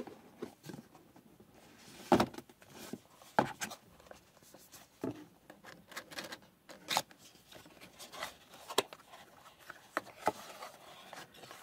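Cardboard product packaging being handled: boxes sliding and rubbing against each other and a box flap being opened, with several sharp taps and knocks scattered through. Near the end a cloth pouch rustles as it is drawn out of its box.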